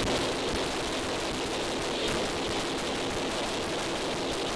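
Rapid, continuous gunfire from two shooters firing at once, the shots running together into a dense, steady clatter in a reverberant indoor range.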